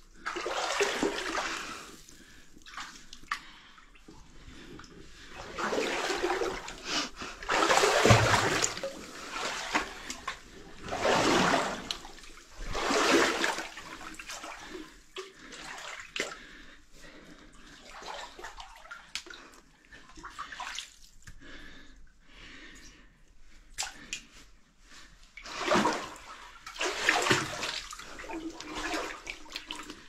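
Water sloshing and splashing in irregular surges a few seconds apart as a person moves through a flooded mine passage. The loudest surge comes about eight seconds in, and there are quieter stretches between.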